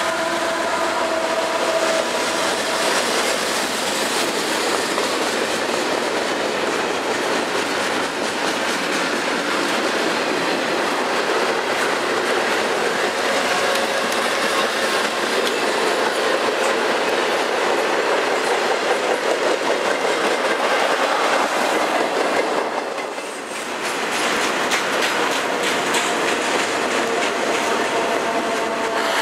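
A long double-stack intermodal container train rolling past at speed: a steady, loud rush of wheels on rail and cars going by. The steady tones of the lead diesel locomotive fade away in the first couple of seconds, and the level dips briefly about two-thirds of the way through.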